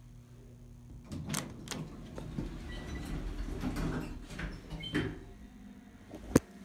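Elevator doors sliding, with a rumble as they run and a few knocks and clicks, the sharpest near the end.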